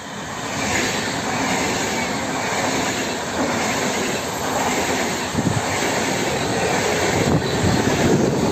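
Express Intercity Premium electric train passing through the station at high speed: a loud rushing of wheels on rails that swells up in the first second and holds, with a few knocks near the end.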